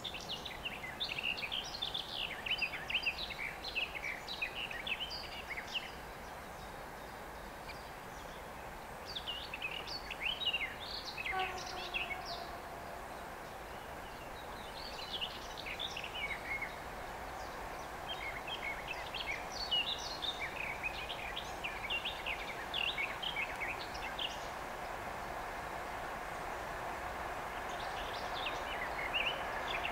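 Small birds singing in repeated chirping phrases over the distant, steady rumble of a 2M62UM twin-section diesel locomotive hauling a freight train, which grows louder near the end as the train approaches.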